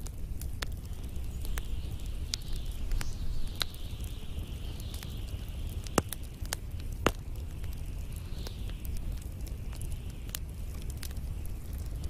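Wood and pine cones burning in an open fire: scattered sharp crackles and pops, two louder pops about six and seven seconds in, over the low steady sound of the flames and a soft hiss that comes and goes.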